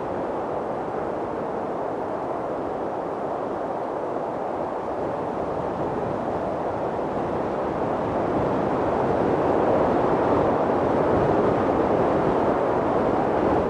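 Mountain wind blowing steadily, a deep rushing noise that swells a little louder over the last few seconds.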